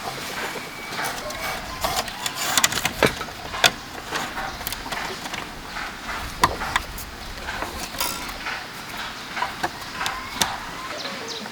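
An irregular series of sharp knocks and clicks, a few much louder than the rest, typical of bamboo being worked by hand.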